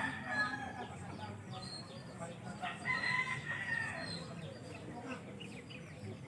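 A rooster crowing twice: the first crow at the very start, a second about two and a half seconds in.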